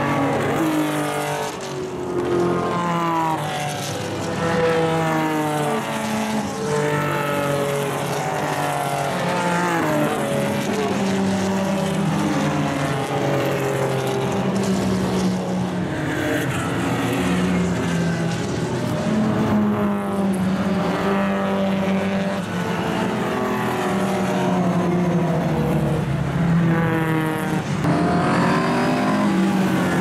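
Historic racing cars passing one after another, their engines revving hard. Each engine note rises in pitch as the car accelerates out of the corner, breaking off and climbing again at each gear change.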